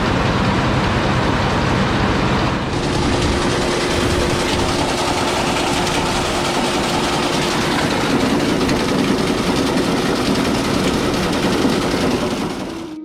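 Heavy farm machinery running steadily and loudly, with a shift in its sound about three seconds in; it fades out near the end.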